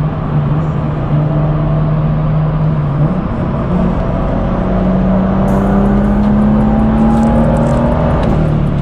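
BMW M2's N55 turbocharged inline-six heard from inside the cabin while driving, with its stock downpipe. It runs as a steady drone, steps up in pitch a little after three seconds in and climbs slowly under acceleration, then drops back near the end as a gear is changed on the manual gearbox.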